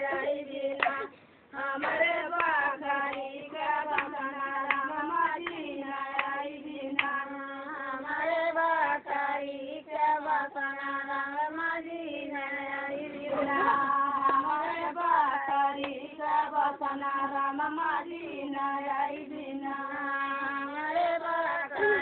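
Group singing of a sung melody, women's and children's voices together, accompanied by hand clapping throughout.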